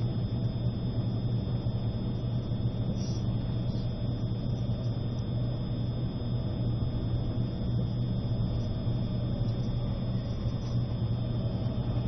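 Steady running rumble of an E653 electric multiple-unit train heard inside the passenger car, moving slowly under a strong-wind speed restriction.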